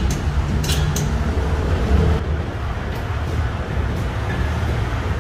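Steady low rumble of workshop background noise, with a couple of light metal clinks from hand tools a little under a second in.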